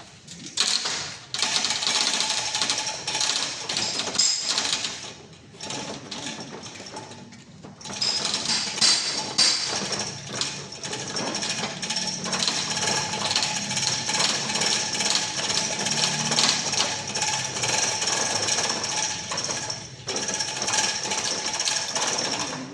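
Rapid, continuous metallic rattling and clattering of mechanical work during an engine installation. It comes in two long runs with a break about five to eight seconds in.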